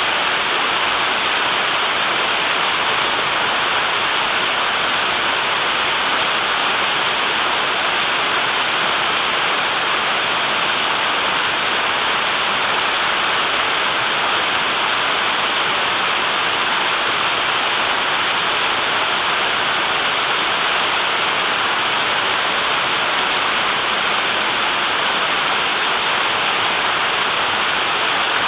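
Small waterfall on a river, its water pouring hard in a steady, even rush.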